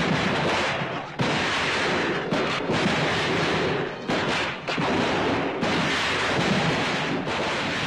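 Battle noise of massed rifle fire and booming, a dense unbroken din with sudden jumps in level about a second in and a few times after.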